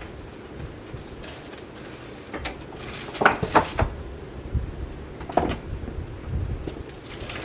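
Casablanca Panama ceiling fan with XTR200 motor running on high, its draught buffeting the microphone in low gusts. A few sharp clacks come about three to four seconds in and once more a little later.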